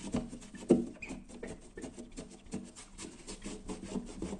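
Fingers rubbing tape-glue residue on window glass, giving a quick rhythmic run of squeaks and rubs, several a second, with a louder knock just under a second in. The residue is smeared with dimexide, which is not loosening it.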